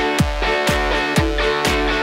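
Background music with a steady beat: a kick drum about twice a second under held notes.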